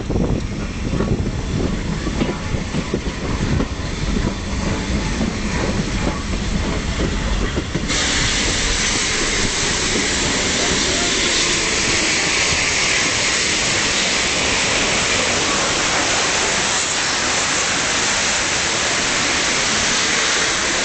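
Railway carriage rumbling and clicking over the rails behind steam locomotives. About eight seconds in, a loud, steady hiss of steam cuts in suddenly and holds.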